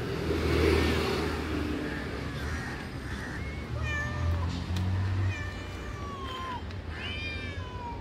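Several kittens mewing in many short, high calls that begin about two and a half seconds in and come several at once, over a low rumble.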